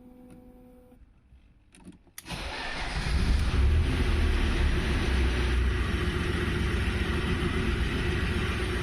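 BMW E36 car engine starting about two seconds in, then running steadily with a deep rumble.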